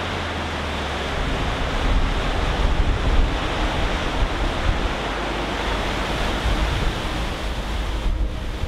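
Waterfall on the Skógá river, white water pouring over a rock ledge in a steady, even rush.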